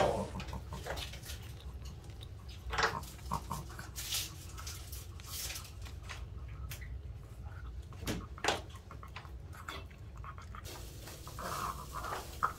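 Long-haired Chihuahua eating chopped cooked beef from a raised bowl: quiet chewing with scattered sharp clicks of teeth and food against the bowl, a pair of them about eight seconds in.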